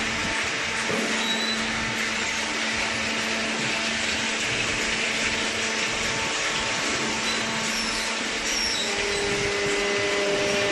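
Cardboard baling machine running steadily: a motor hum under a constant hiss, with a second, higher hum joining about nine seconds in.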